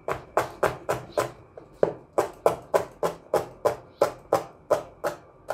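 Chef's knife chopping green chili peppers on a plastic cutting board: a steady run of knife strikes on the board, about three a second, with one brief pause.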